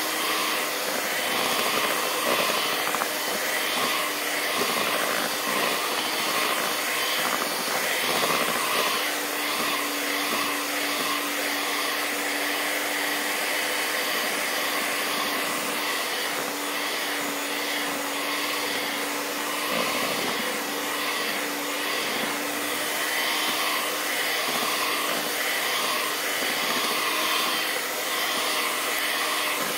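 Electric hand mixer running at a steady speed, its beaters whisking thick egg-and-flour cake batter in a bowl.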